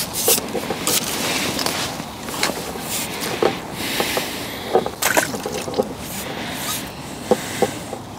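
Pole-fishing tackle being handled: scattered clicks, knocks and scrapes over a steady rustle, several sharp knocks standing out.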